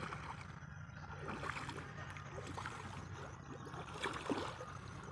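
Feet wading through shallow, muddy water: scattered splashes and sloshes, the loudest about four seconds in, over a steady low background rumble.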